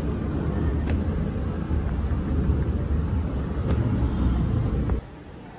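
A steady low rumble with a few light taps, cutting off suddenly about five seconds in.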